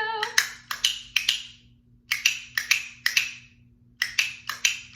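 A small hand percussion instrument, struck in three groups of three sharp knocks, about two and a half a second, with a short wooden ring. It plays the 'snap, snap, snap' of a children's duck song in place of the words.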